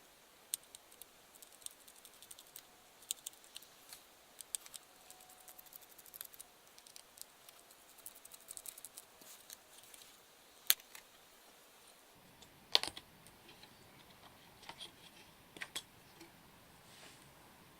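Irregular light clicks and taps of small computer parts being handled and fitted into a mini PC, with two louder clicks, one about two thirds of the way through and another shortly after.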